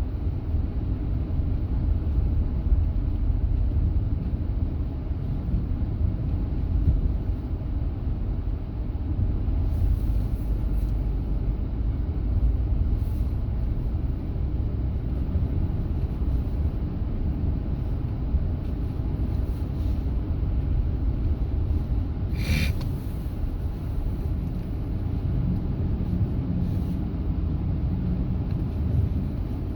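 Steady low rumble of a vehicle in motion, with one sharp click about twenty-two seconds in.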